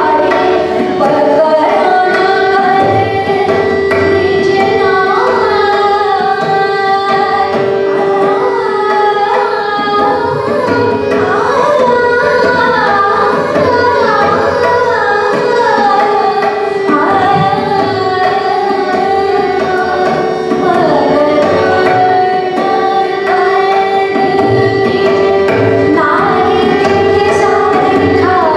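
Hindustani classical vocal music: a woman singing gliding melodic phrases with tabla accompaniment over a steady drone.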